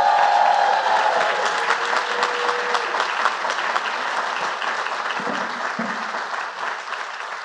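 Audience applauding, a dense patter of many hands clapping, loudest at the start and easing a little toward the end.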